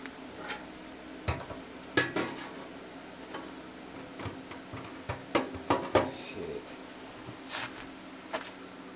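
A series of irregular metallic clinks and knocks from hard objects being handled and set down, loudest about two seconds in and in a cluster around five to six seconds in, over a steady low hum.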